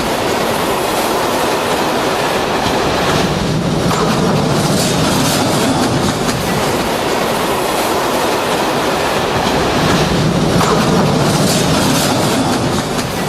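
Train of tank wagons running along the track: a steady, loud rumble of wheels on rails.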